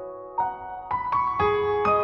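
Slow instrumental background music: about five single notes struck one after another, each ringing on.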